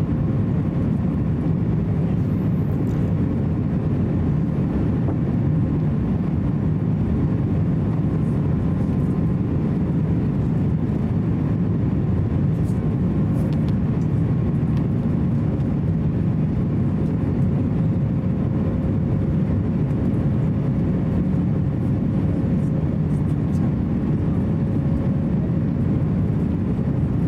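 Steady cabin noise inside an Airbus A350-900 on final approach: a low, even rumble of its Rolls-Royce Trent XWB engines and the airflow, heard from a seat over the wing, with a faint steady tone on top.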